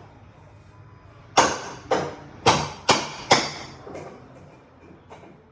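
Hammer striking a cat's paw to drive its claw under a screw head: five sharp blows in about two seconds, each ringing briefly, followed by a couple of lighter taps.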